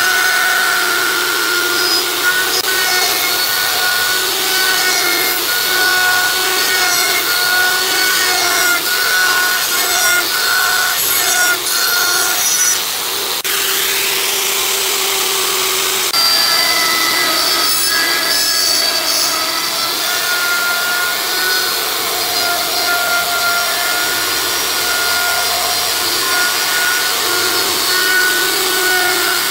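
An electric power tool working wood, running with a steady whine. Its sound changes for a few seconds about halfway through, then settles back to the same whine.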